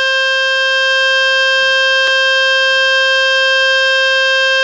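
Loud, steady buzzing tone from a speaker-cleaning web page ('Fix My Speaker'), played on a Samsung Galaxy M52 to shake dust and water out of its speaker. There is one short click about two seconds in.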